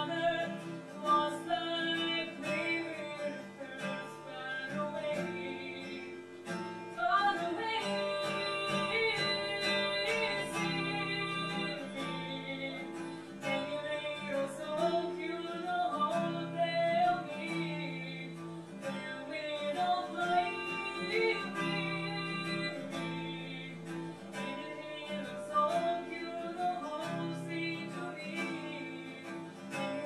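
A woman singing a song to acoustic guitar accompaniment.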